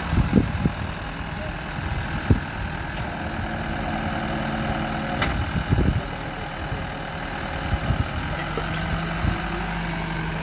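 Tow truck engine running steadily while its crane lifts a wrecked motorcycle onto the flatbed, with a few short low thumps along the way.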